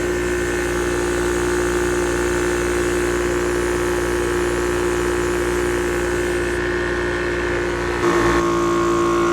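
Yong Heng 4500 psi PCP air compressor running steadily while filling an air bottle from 3000 to 4500 psi: a constant mechanical hum with a strong steady tone. About eight seconds in, it gets slightly louder and its tone shifts.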